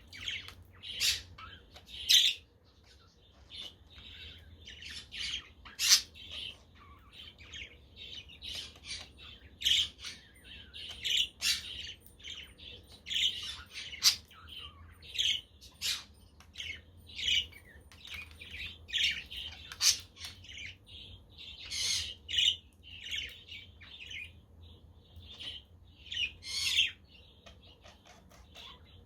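Budgerigars chirping and chattering continuously, many short calls overlapping, with several louder, sharper squawks standing out.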